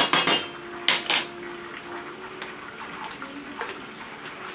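A metal spoon clinking sharply against a stainless steel skillet, several quick ringing taps in the first second or so. After that the melting butter in the pan bubbles faintly with small scattered ticks.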